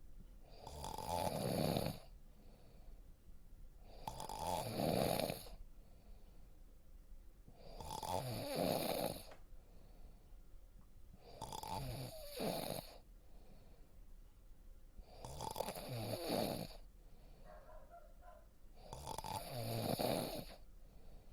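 A person snoring in a slow, steady rhythm: six rasping snores, each about a second long, coming about every three and a half to four seconds, with quieter breathing between.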